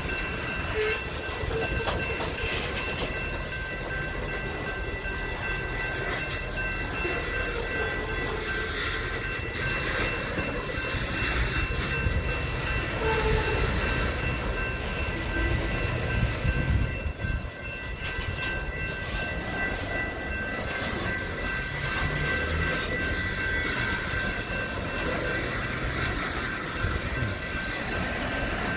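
A train rolling past: a steady rumble of rail cars on the track, with several steady high ringing tones held throughout.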